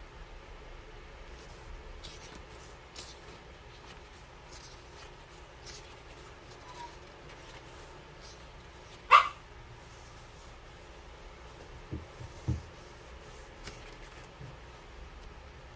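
One short, loud animal call about nine seconds in, over faint scattered clicks. Two low thumps follow about three seconds later.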